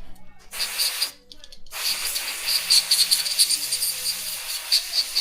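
Aerosol carb cleaner spraying: a short hissing burst about half a second in, then a longer steady hiss of about four seconds.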